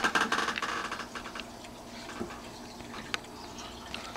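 Scattered clicks and rustling close to the microphone, densest in the first second, over the faint ticking of a Howard Miller mechanical mantel clock.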